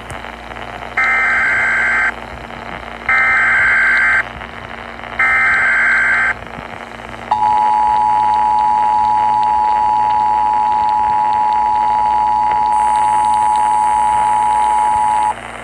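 Emergency Alert System activation heard over AM radio: three one-second bursts of digital header data a second apart, then the steady two-tone attention signal held for about eight seconds, all over a background of radio hiss and hum. The tones announce an emergency alert broadcast.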